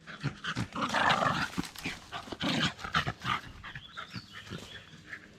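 A dog panting close by, with irregular rustles and clicks as it moves about.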